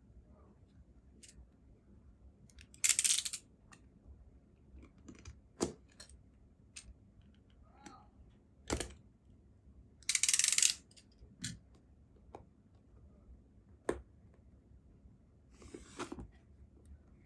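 Unboxing sounds as the GMK26 macropad's packaging is handled: two short scraping swishes of box or wrapping, about 3 and 10 seconds in, between scattered light clicks and taps.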